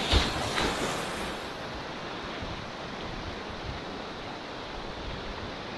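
River water rushing and splashing around a kayak on the move, with a louder burst of splashing in the first second or so, then a steady rush.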